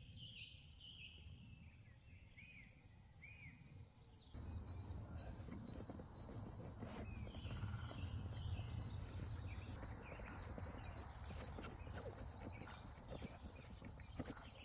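Wild birds singing and chirping. About four seconds in, close rustling with many small knocks and clicks starts under the birdsong and runs on.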